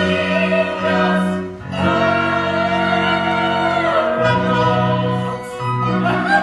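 Operetta singers with accompaniment performing a comic-opera trio: a sung phrase, then a long held chord that falls away, then a new phrase starts.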